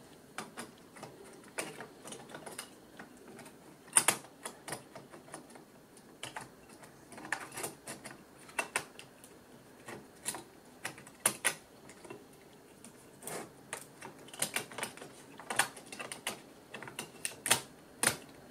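Irregular small clicks and taps of fingers handling a replacement cooling fan and the plastic and metal parts inside an open laptop chassis, with a sharper click about four seconds in.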